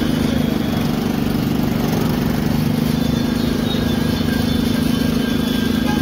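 Small engine running steadily, driving the rollers of a street sugarcane juice crusher.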